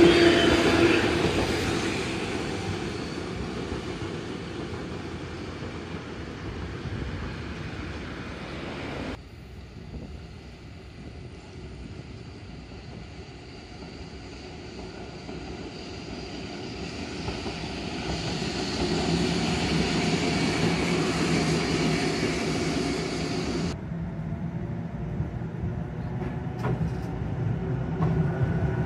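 Two-car coupled Randen street trams (Mobo 501 type) running along street track, one pair after another: the rumble of wheels on the rails and the hum of the motors rise as each draws near and fade as it goes by, over road traffic. A steady low motor hum stands out in the middle passing, and a few sharp clicks come near the end.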